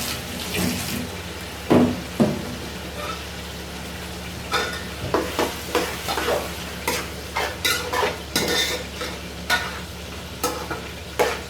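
Pork frying in a pan with sautéed tomatoes, over a steady sizzle. A cooking utensil knocks and scrapes against the pan as it is stirred: two loud knocks about two seconds in, then irregular knocks from the middle on.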